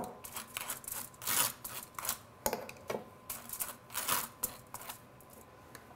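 Knife spreading mustard on toasted rye bread: a string of short, dry scraping strokes across the crisp toast, uneven in pace and fading out near the end.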